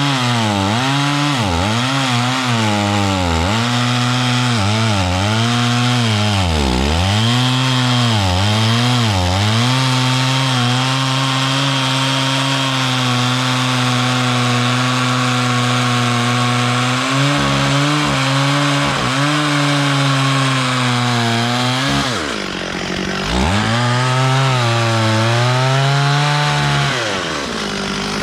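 Stihl 440 two-stroke chainsaw cutting wood. Its engine pitch drops and recovers again and again as the chain bites, holds steady for several seconds in the middle, then dips sharply about 22 seconds in and climbs back up.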